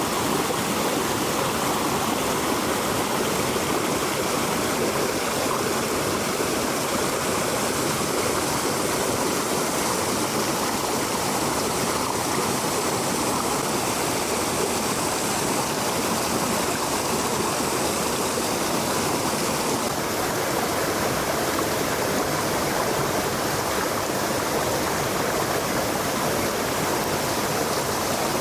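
Stream water flowing steadily, a constant even rush with no breaks.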